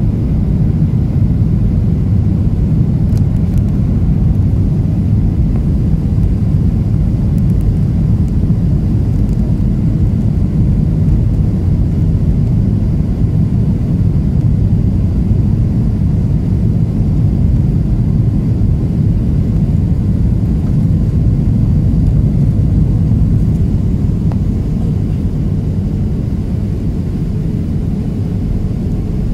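Steady low rumble of a jet airliner's engines and airflow heard inside the cabin during the landing approach and rollout.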